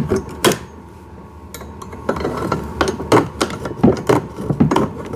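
Irregular sharp clicks and knocks of plastic parts being handled as zip ties are cut and pulled free from the steering mechanism of a kids' ride-on car. The clicks come thickest in the second half.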